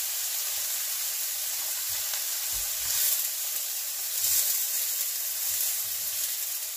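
Chopped onions and shrimp sizzling in margarine in a frying pan, a steady hiss that swells louder twice, about three seconds and four and a half seconds in, as tongs move the shrimp.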